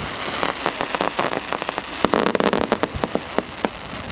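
Fireworks going off: an irregular string of sharp pops and crackles, thickest about two seconds in.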